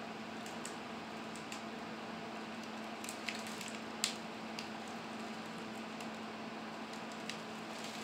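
Steady background hiss with a faint low hum, broken by a handful of short sharp cracks, the loudest about four seconds in: twigs and branches of a hung-up cedar snapping as the tree is pulled down with a rope.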